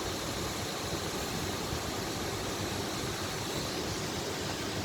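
Steady, even rushing of the Cascata delle Marmore waterfall, heard from a distance.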